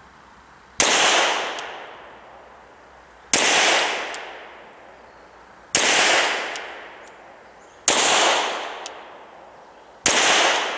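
Glock 17 9mm pistol fired five times in slow, deliberate single shots, about two to two and a half seconds apart, each report trailing off in a long echo.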